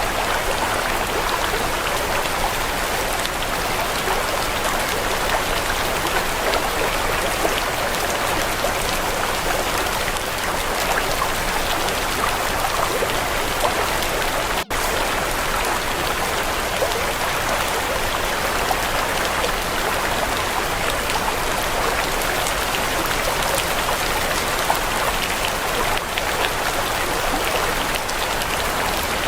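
Steady recorded rain sound, an even hiss of falling water, with a split-second dropout about halfway through.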